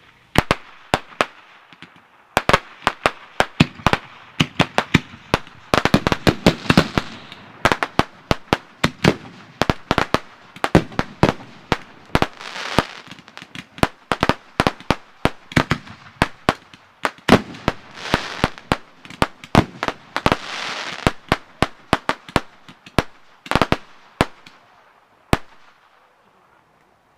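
Fireworks fired from racks of tubes going off in rapid succession: dozens of sharp bangs and cracks, some in quick clusters, stopping a couple of seconds before the end.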